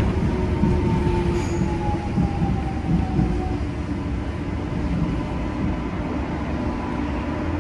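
Korail electric subway train running, heard from inside the passenger car: a steady rumble of wheels on the rails with a thin electric motor whine slowly falling in pitch as the train loses speed.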